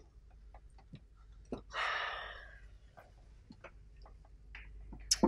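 A person sighs once, a breathy exhale about two seconds in that fades away, amid faint scattered clicks.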